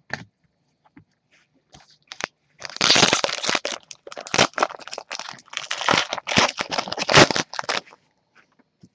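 Foil wrapper of a Panini Prizm basketball card pack being torn open and crinkled by gloved hands. There are a few faint clicks at first, then dense crackling from about two and a half seconds in, which stops shortly before the end.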